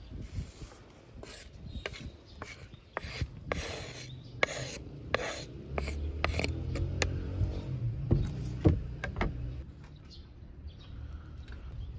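Wooden spatula scraping chopped green onions off a wooden cutting board: a run of short scraping strokes of wood on wood that dies away after about nine seconds.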